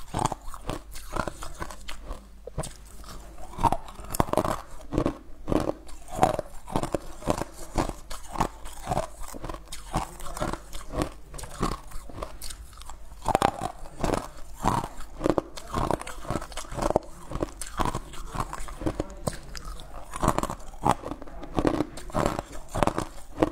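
Ice cubes being bitten and crunched between the teeth and chewed, a quick, continuous run of sharp crunches heard close up.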